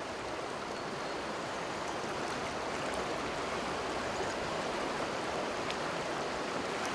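River water rushing steadily over stones in a shallow riffle.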